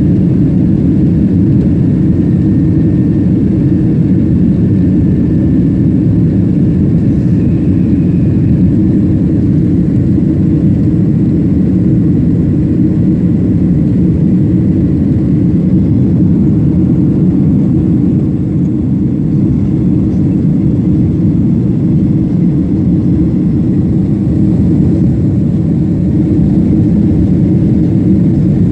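Steady, loud rumble of an airliner's engines and airflow heard from inside the passenger cabin, with no rise or fall.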